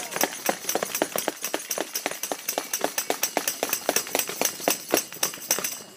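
A crowd applauding: many sharp, separate handclaps, stopping suddenly near the end.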